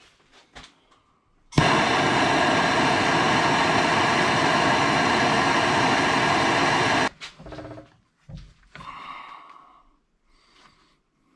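Hand-held gas torch lit with a pop about a second and a half in, running with a steady hiss for about five seconds as it heats a steel rod clamped in a vise, then shut off suddenly. A few short knocks and scrapes follow as the hot rod is worked by hand.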